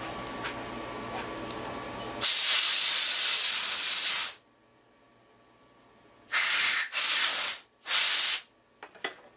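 A CNC milling machine runs with a steady hum that stops about two seconds in. A compressed-air blow gun then hisses in one long blast of about two seconds, and after a pause gives three short blasts, blowing chips off the machined block in the vise.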